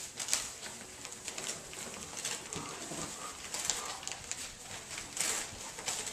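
A litter of puppies scuffling through shredded-paper bedding: frequent crackling rustles of the paper as they move, with a few soft puppy grunts and whimpers.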